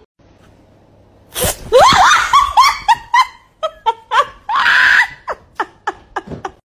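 A person shrieks and laughs hard in short, high-pitched bursts. It starts suddenly about a second and a half in, with a louder shriek just past the middle, and ends in a run of quick falling laughs.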